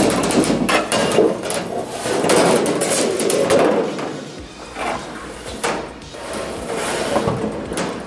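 A large aluminium sheet being slid under the rear of a car and shuffled into place, scraping and wobbling, with a few sharp knocks in the second half.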